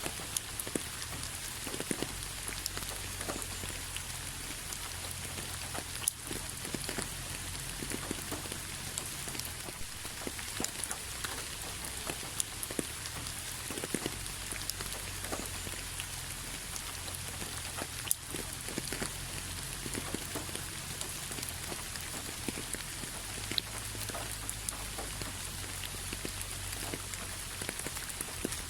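Steady rain falling, with a dense hiss and many separate drops striking close by, and a low steady rumble underneath.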